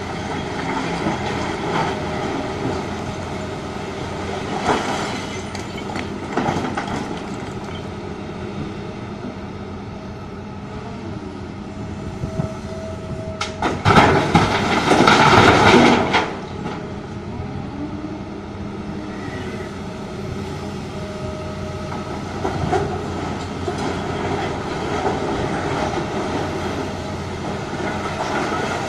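Heavy diesel engines of a Doosan DX380LC excavator and a Komatsu HM400 articulated dump truck running steadily, with the excavator's hydraulics rising and falling in pitch as it digs, and a few knocks of rock in the bucket. About halfway through, a bucketload of rock crashes into the truck's steel dump body in a loud burst lasting about two seconds.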